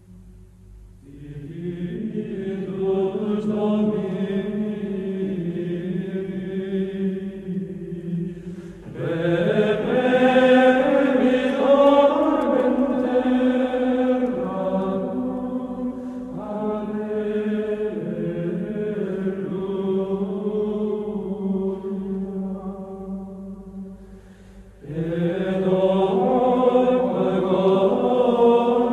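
Slow sacred choral chant as background music: long held notes and chords sung by voices, in phrases that swell in about a second in, again about nine seconds in, and once more near the end after a brief dip.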